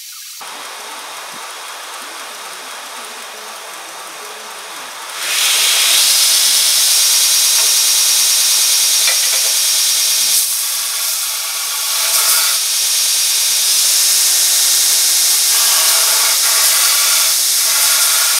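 Northridge belt grinder running, then from about five seconds in a piece of metal is pressed against the abrasive belt and the sound jumps to a loud, steady grinding hiss that dips briefly now and then as the work is moved.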